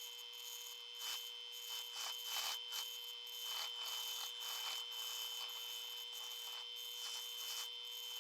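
Polishing wheel running with a steady whine while a knife's handguard and pommel are held against it, making an uneven rubbing hiss that swells and fades.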